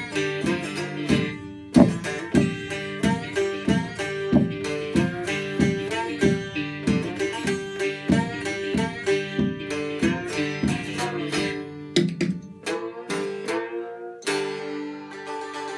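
Home-made six-string pan-bodied banjo-guitar (panjo) picked in a quick run of notes over a looped backing track of itself from a loop box. About 14 seconds in, the picking stops and a struck chord rings on.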